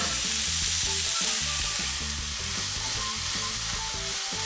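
Diced vegetables, tofu and sweet corn sizzling in hot oil in a wok, stirred with a spatula.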